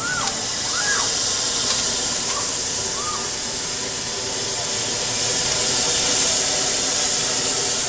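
Loud, steady hiss of compressed air from the Space Shot's pneumatic launch tower as the rider car rides the tower, swelling a little about five seconds in. A few brief high cries from the riders come in the first three seconds.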